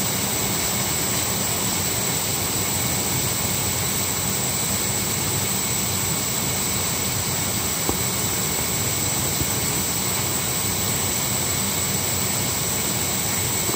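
Constant machine noise: an even rushing sound with a low hum underneath, holding a steady level, and a single faint click about eight seconds in.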